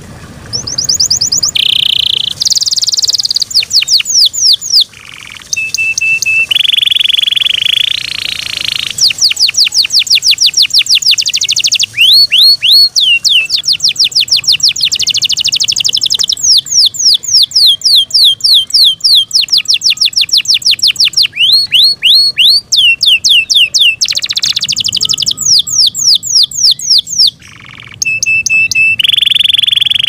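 Yorkshire canary singing loudly: fast trills of repeated falling whistles alternating with steady, high rolling notes, with a couple of brief pauses.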